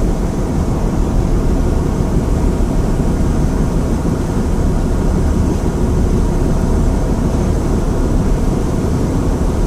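A boat under way: the steady drone of its engine mixed with water rushing along the hull.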